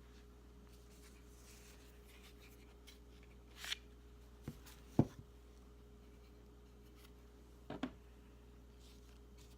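Small hard parts being handled on a bench: a brief scrape, two light knocks about half a second apart, the second the loudest, and a quick double click, over a faint steady hum.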